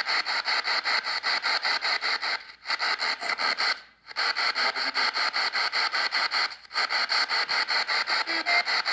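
Spirit-box sweep radio (P-SB7) scanning through stations, heard through the APF-D processor: a fast chopping static of about seven or eight short bursts a second, broken by three brief dropouts.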